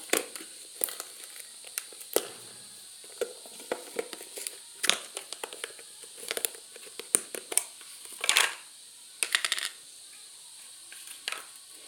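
Hands handling a plastic bottle of glue for slime: irregular small clicks and taps with a few short rustles, as the glue is opened and poured out.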